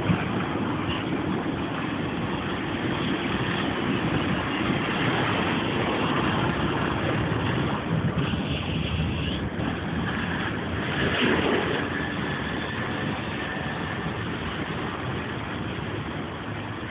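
City road traffic: cars and buses passing on the street below, a steady rumbling wash of engine and tyre noise, with one vehicle swelling louder about eleven seconds in and a thin high tone running for a couple of seconds around then.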